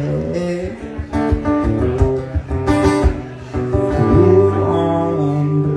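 Acoustic guitar strummed and picked solo, closing out a song after its last sung line.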